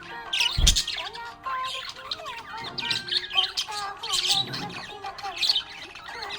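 Budgies chirping and warbling continuously, many quick wavering chirps overlapping, with a single loud thump about half a second in.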